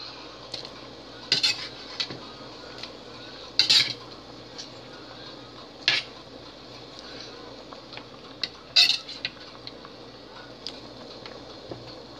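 Metal utensil clinking and knocking against a stainless steel cooking pot, about a dozen sharp clinks at irregular intervals, four of them much louder than the rest, over a faint steady hiss.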